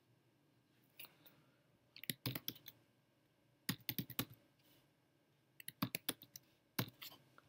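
Keystrokes on a computer keyboard, typing a few keys at a time in several short bursts with pauses between them.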